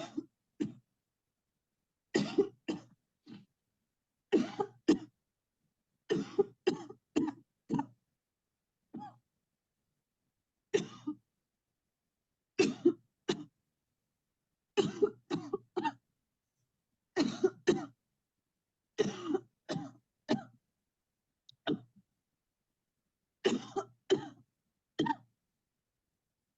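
A person coughing deliberately on cue, in short bursts of two or three coughs repeated about every two seconds.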